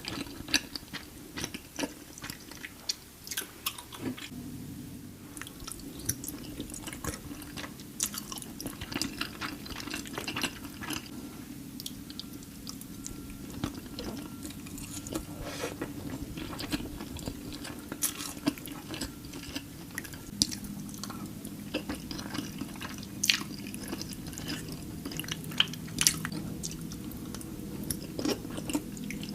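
Close-miked chewing of creamy Alfredo pasta: wet mouth sounds with many short, sharp clicks at an irregular pace.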